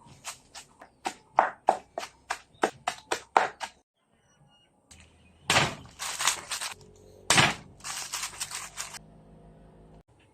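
Quick chops on a cutting board, about four a second for the first few seconds, then after a short break several longer, louder scraping or rustling noises.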